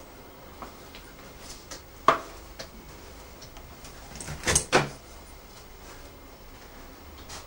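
Door being knocked and moved: one sharp knock about two seconds in, then a louder double knock with a short scrape a little past the middle, over faint clicks.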